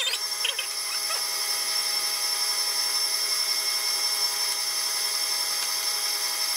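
Electric stand mixer running steadily with a high motor whine as its whisk beats cream cheese filling.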